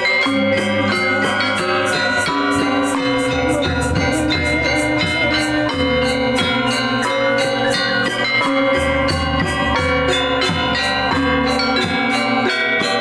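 Balinese gong gamelan ensemble playing: bronze metallophones struck in fast, even strokes over ringing held tones, with a low booming layer that comes and goes.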